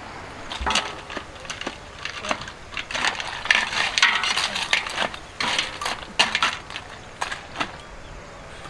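A metal utensil scraping and clattering inside a large metal wok, in irregular strokes that grow busiest in the middle and thin out near the end.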